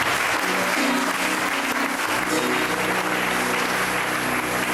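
Audience applauding, with held musical notes coming in underneath about half a second in and thickening into chords about two seconds in.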